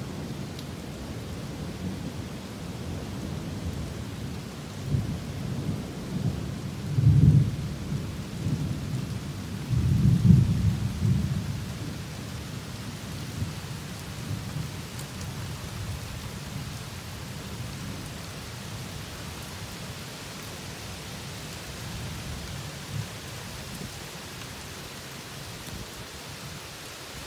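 Thunder rumbling over steady rain, with two louder rolls of thunder about seven and ten seconds in.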